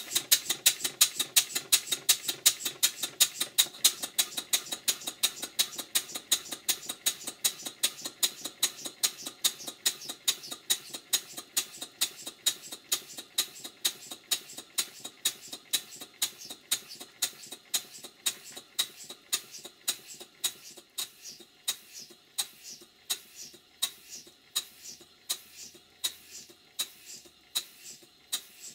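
Stuart Models 5A model steam engine running on compressed air, its exhaust giving a quick, even beat of sharp puffs. It starts up suddenly and the beat slows gradually over the run.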